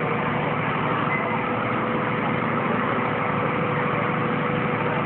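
A vehicle engine idling steadily, with a constant pitched hum over an even, dense rush.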